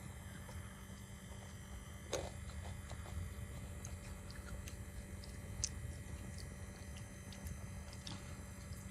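Faint eating sounds close to the microphone: a few scattered wet mouth clicks and chewing noises, the loudest about two seconds in, over a steady low hum.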